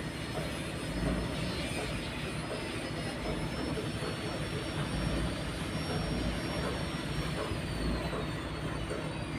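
A boat's engine running steadily, a low rumble. A faint high whine drops in pitch near the end.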